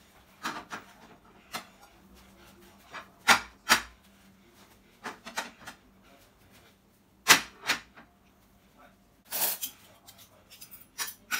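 Clear glass plates and metal spoons and forks clinking and clacking as they are set down on a glass-topped table: about a dozen separate sharp hits at irregular intervals, with a longer clatter of cutlery near the end.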